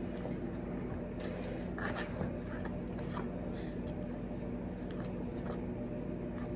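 Quiet eating sounds: soft scraping and a few light clicks as food and utensils are handled, most of them in the first half, over a steady low hum.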